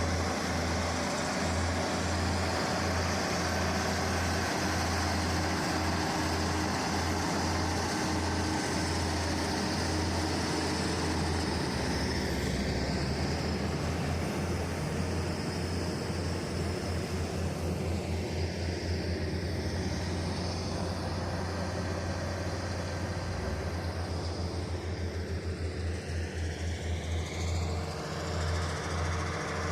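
Bulldozer's diesel engine running with a steady low drone. In the second half the higher part of the sound sweeps up and down in tone.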